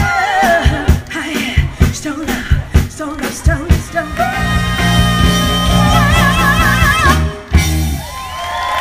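Live Motown-style band with female lead singers finishing a song: drums keep the beat, then about four seconds in the band holds a final chord under a long sung note with vibrato. The ending cuts off sharply about seven and a half seconds in, and the crowd breaks into cheering and whoops.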